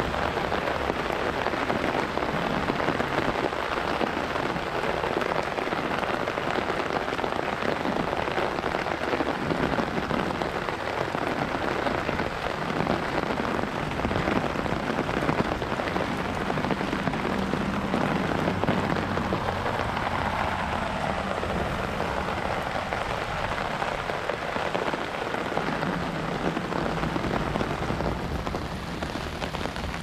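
Heavy, steady rain drumming on an open umbrella overhead and splashing on wet pavement.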